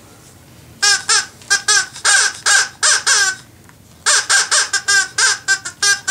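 Rapid parrot squawks, about four a second, in two runs with a short pause near the middle: the parrot puppet's squawked 'reading' of a line of the book, which is then translated into words.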